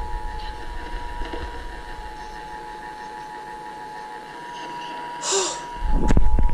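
Emergency Alert System attention signal: the steady two-tone EAS alarm, played from a radio's speaker at the start of a Required Monthly Test. A short hiss comes about five seconds in, and near the end a louder low rumble with knocks comes in under the tone.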